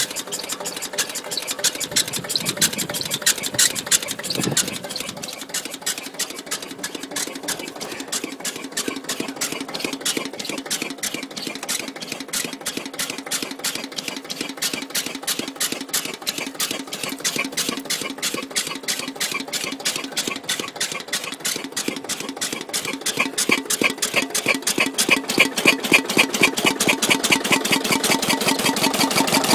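Lister CS 6/1 single-cylinder slow-speed diesel running, an even beat of firing strokes that grows louder near the end. A regular squeak rides on the beat from its oil pump arm, which is dry after the engine stood out in all weathers for nearly nine years.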